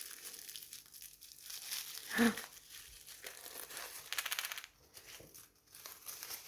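Plastic wrapping crinkling and being torn open by hand, with a quick run of crackling rips about four seconds in.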